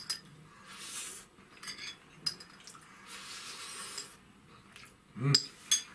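Metal spoon clinking and scraping against a small plate as food is scooped up and eaten. There are a few sharp clinks with a short ring, the loudest pair near the end, and soft noisy stretches in between.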